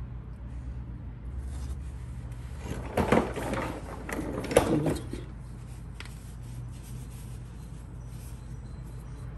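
Handling noise: two short bursts of rubbing and knocking, about three and four and a half seconds in, as a rag and parts are moved about under the truck.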